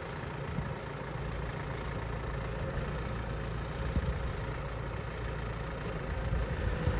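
Case IH Maxxum 110 tractor's diesel engine idling steadily.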